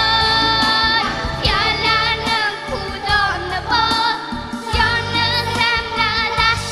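A young girl singing an Albanian children's pop song into a microphone, holding wavering notes, over a backing track with a steady bass line.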